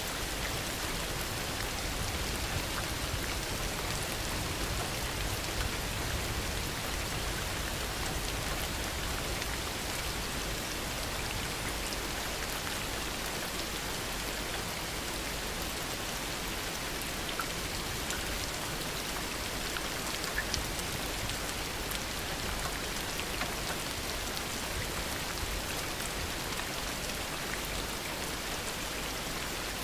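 Steady heavy rain falling, with many small drop impacts and no thunder.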